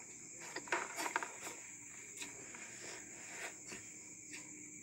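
Faint clicks and taps of people eating by hand from plastic plates, a small cluster about a second in, over a steady high-pitched hiss.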